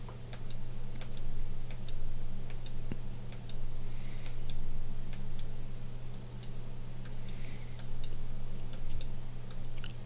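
Light, irregular clicks and taps over a steady low electrical hum, with two faint short high chirps near the middle.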